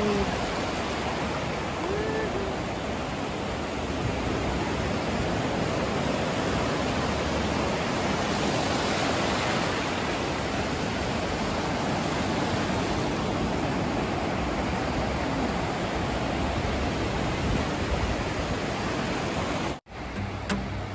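Small waves breaking and washing up a sandy beach: a steady rush of surf. It cuts off abruptly near the end, followed by a few clicks.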